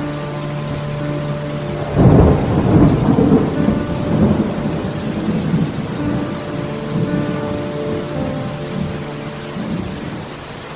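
Steady rain falling, with a rolling thunder rumble that breaks in about two seconds in and fades away over the next few seconds.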